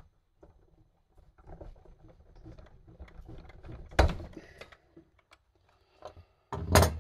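Water-pump pliers gripping and working the brass cap off the pinion end of a Piaggio Ape 50 starter motor, with low metal scraping, then a sharp metallic snap about four seconds in as the cap comes off. Another loud knock follows near the end.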